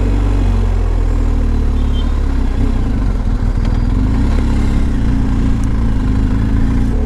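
Motorcycle engine running steadily while riding, a continuous low drone that holds an even speed throughout.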